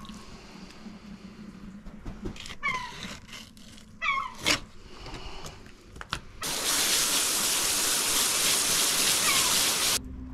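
A gull calling, a few short falling cries in the first half. About six seconds in, a loud steady hiss takes over and stops abruptly near the end.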